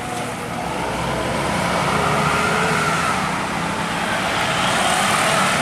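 Road traffic: engines of a tour bus, cars and motorcycles running and passing, a steady mix of engine and road noise.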